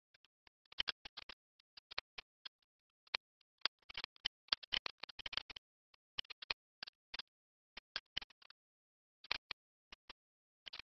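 Computer mouse clicks and keyboard keystrokes: short, sharp clicks at irregular intervals, with a fast run of keystrokes from about four to five and a half seconds in.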